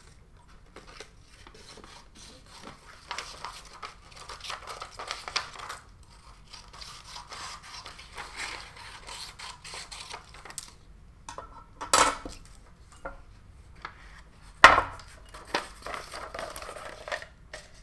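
Sheets of paper rustling and rubbing as a tracing template is folded and handled, with two sharp knocks on the table about twelve and fifteen seconds in, the second the louder.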